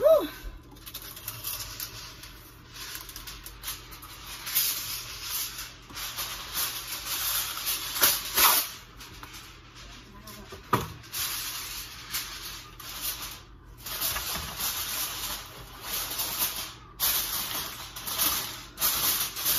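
Reynolds Wrap heavy-duty aluminum foil crinkling and rustling in uneven bursts as it is pulled off the roll and pressed over a disposable aluminum pan.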